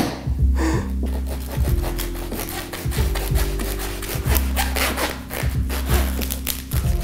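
Bread knife sawing through a rock-hard, stale baguette crust, with repeated rasping strokes, over background music with a steady bass line.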